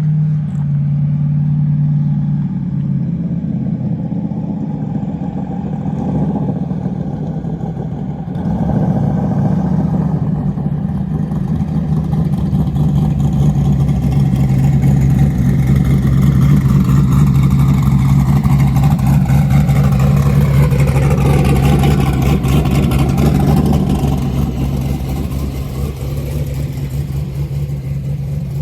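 Drag car's engine running loudly and steadily at a low, constant pitch, with no clear rev up or launch. It gets louder about eight seconds in.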